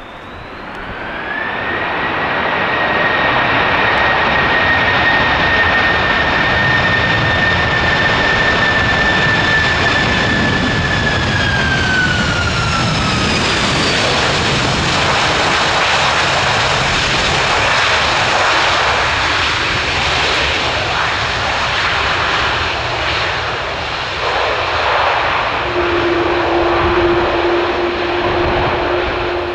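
Airbus A330-200 twin turbofan jet engines passing on landing: a steady high whine over engine noise, dropping in pitch as it goes by, then a broad rushing roar. A steady low hum comes in near the end.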